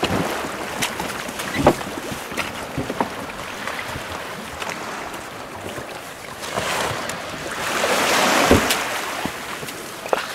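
Water sloshing and splashing around a small boat, with wind on the microphone and scattered sharp knocks. A louder rush of water swells about six and a half seconds in and fades again a few seconds later.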